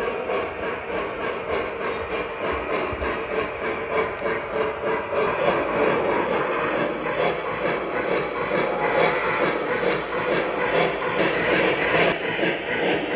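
Lionel Legacy O-gauge model of a PRR USRA 2-8-8-2 steam locomotive running, its onboard sound system playing steam and hiss effects over the rumble of wheels on three-rail track, as the engine and then its freight cars pass close by.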